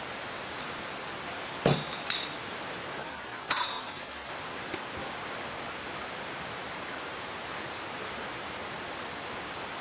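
Steady rush of a mountain stream running high and fast with monsoon rain. Four short clinks sound over it between about one and a half and five seconds in.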